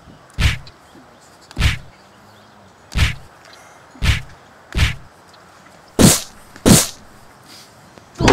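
Seven short whacks of staged blows, about one a second, the last two sharper and brighter.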